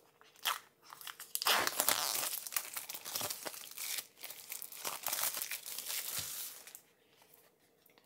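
Plastic shrink-wrap being torn and pulled off a small pen box: a dense crinkling crackle lasting about five seconds, after a couple of brief clicks, stopping shortly before the end.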